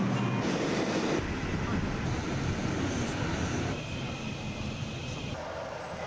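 New York City subway train in the station, a loud steady noise of the train running. About four seconds in it cuts abruptly to quieter background noise with a faint steady high tone, then changes again shortly before the end.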